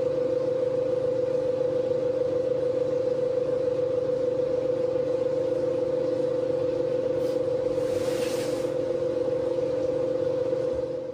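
Victron MultiPlus-II 5 kVA inverters running under a heavy load of about 8.6 kW, their cooling fans running full bore over a steady electrical hum with a prominent mid-pitched tone. A brief rise in hiss comes about eight seconds in.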